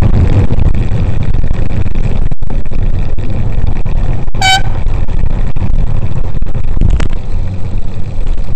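Wind buffeting the microphone and road noise of a bicycle ride in traffic, with one short, high horn toot about halfway through.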